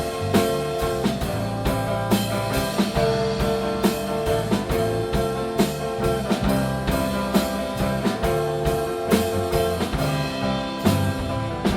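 Rock band of guitar, bass and drum kit playing an instrumental passage, with held guitar notes over a steady drum beat.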